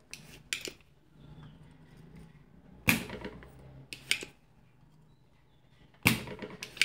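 Spring-loaded desoldering pump (solder sucker) snapping sharply as it fires, about three seconds in and again about six seconds in, each snap followed within a second by a lighter click. It is sucking melted solder out of the circuit board's component holes.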